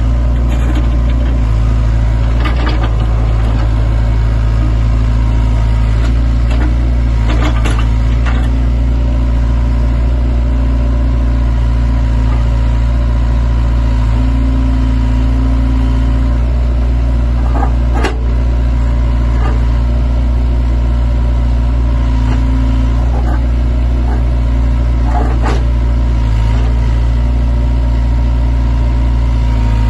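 Sany excavator's diesel engine running steadily, with a few sharp knocks scattered through.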